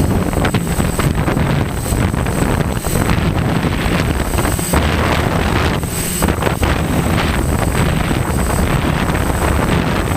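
Gusty wind buffeting the microphone of a GoPro carried aloft by a DJI F550 hexacopter, over the steady drone of its motors and propellers, with a thin high whine held steady.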